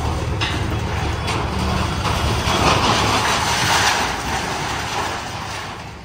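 Diesel engines of JCB backhoe loaders running steadily. About two and a half seconds in comes a long crashing, rattling noise as the building's concrete front beam and steel scaffold frame collapse, dying down near the end.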